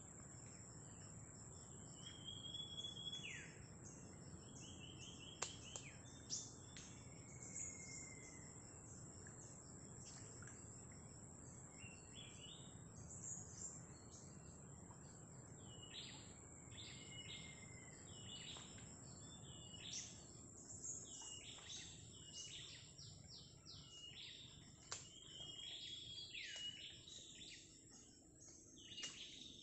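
Faint forest ambience: small birds chirping and calling in short repeated notes and brief whistles, more often in the second half, over a steady high-pitched insect hum.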